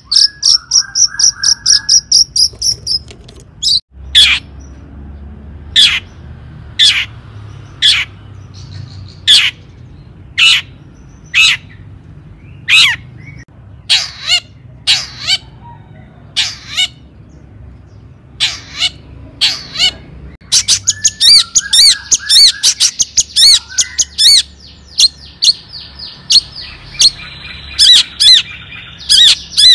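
Long-tailed shrike singing: a high, buzzy trill at first, then a run of sharp, loud single notes about one a second. From about two-thirds of the way through, these give way to fast runs of rapid notes and trills.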